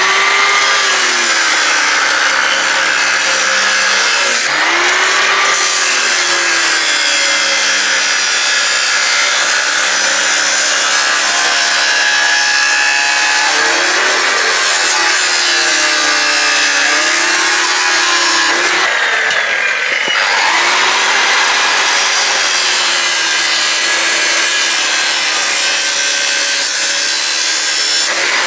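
Electric angle grinder with an abrasive cut-off disc cutting through a steel pipe, running without a break. The motor's whine sags and recovers several times as the disc bites into the metal.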